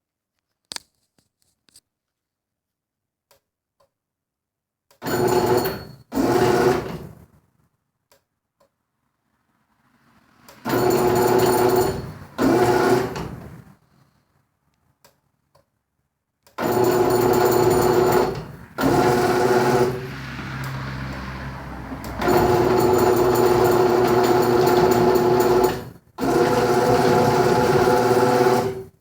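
Genie garage door opener motor humming in repeated short runs, cutting in and out about nine times with one weaker stretch in the middle. The door is not opening and closing properly, which the owner is pretty sure is down to a failing, leaking start capacitor that had smoked, with the door hinges stiff from freezing.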